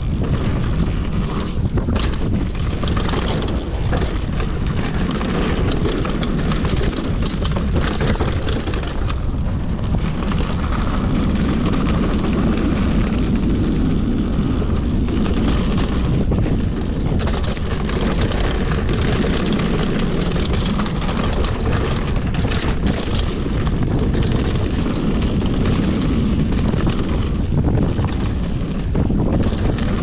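Wind rumbling across the action camera's microphone during a fast descent on a Commencal Supreme DH downhill mountain bike. Tyres crunch over dirt and loose gravel, and the bike rattles with frequent knocks as it goes over bumps.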